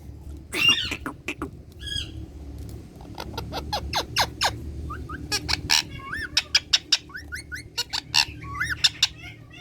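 Indian ringneck parrot calling: a harsh squawk about half a second in, a short whistle near two seconds, then a fast run of clicks and short chirps.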